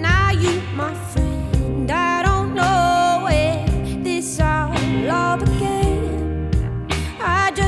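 Background song: a voice singing a melody over sustained bass notes and instrumental accompaniment.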